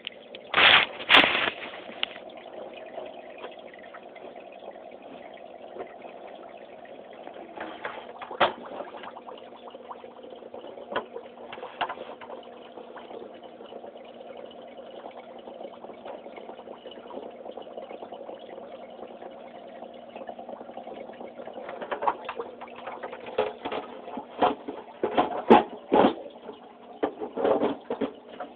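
Aquarium pump running with a steady hum over trickling, bubbling water. Sharp handling knocks come about a second in and in a cluster near the end.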